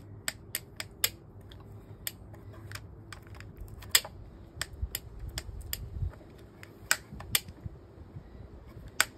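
Irregular sharp clicks and knocks from hands working the controls of a Poulan 2000 chainsaw, the loudest about four seconds in; the engine does not start.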